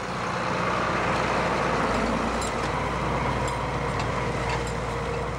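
Tractor engine running steadily at an even pace, with a low rumble and a few light clicks.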